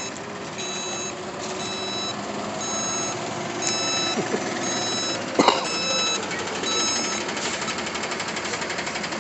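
Backup alarm of a reversing truck, beeping about once a second over the noise of running truck engines, with one sharp clack about halfway through.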